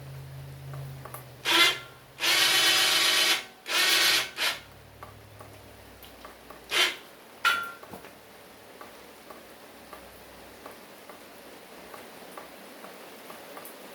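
A handheld power tool run in six short bursts over the first eight seconds, the longest just over a second.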